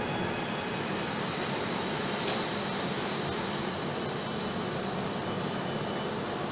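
Trenord electric train pulling into the station and slowing to a stop: running noise with a steady high electrical whine. The whine changes about two seconds in to a higher pitch, which fades out near the end.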